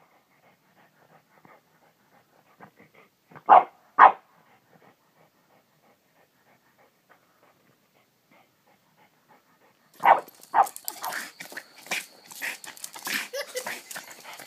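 A small dog barks twice in quick succession about three and a half seconds in, between faint scratching of its paws digging in loose dirt. From about ten seconds in there is a busy run of scuffing and clattering as the dog scrambles off.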